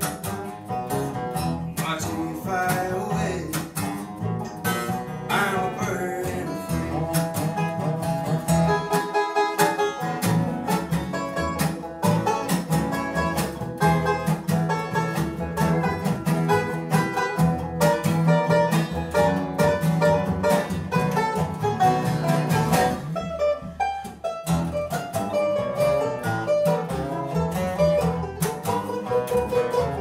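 Bluegrass string band playing live, with banjo, acoustic guitar and dobro picking quick runs over an upright bass.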